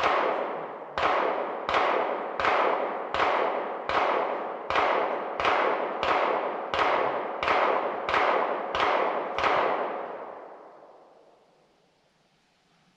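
Gunshots: a string of about fourteen shots fired at an even pace, roughly one and a half a second, each trailing off in a long echo; the firing stops about nine and a half seconds in and the last echo dies away.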